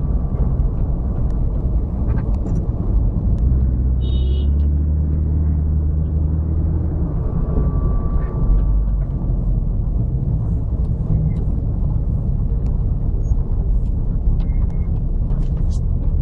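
Car engine and road rumble heard from inside a moving car's cabin, steady and low. A brief high beep sounds about four seconds in.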